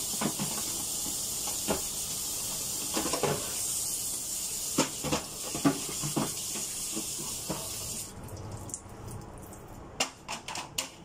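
Tap water running into a sink, with knocks and clatter of items being handled under it. The water shuts off about three-quarters of the way through, and a few sharp clacks follow near the end.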